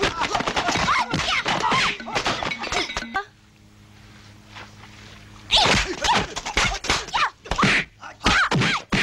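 Kung-fu film fight sound effects: a rapid string of punch and kick impacts mixed with women's shouts and screams. A lull with only a low hum comes about three seconds in, then about two seconds later the hits and yells start again.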